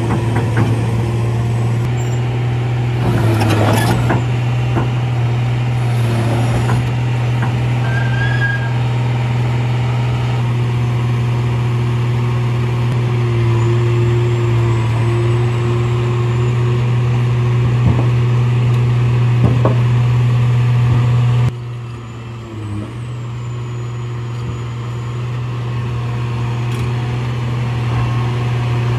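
Caterpillar tracked excavator's diesel engine running with a steady low drone as the machine tracks up onto a lowboy trailer. A brief hiss comes a few seconds in, and the sound drops suddenly in level about two-thirds of the way through.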